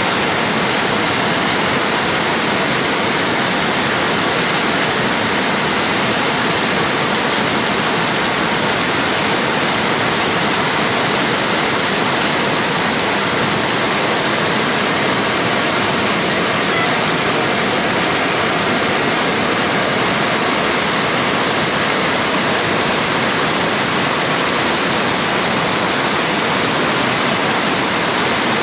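Swollen river in flood, muddy floodwater rushing in a torrent: a loud, steady roar of water that never lets up.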